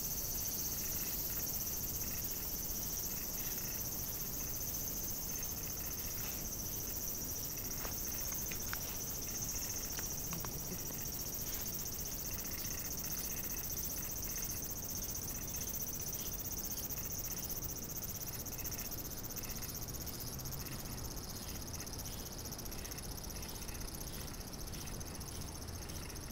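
A steady, high-pitched insect chorus, with faint repeated strokes of a deshedding brush rasping through a dog's coat.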